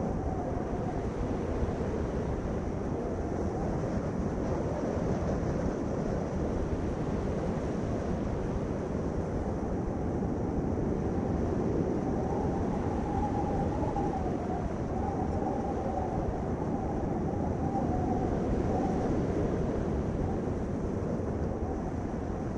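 Steady low rumble of a vehicle on the move, with a faint wavering whine above it.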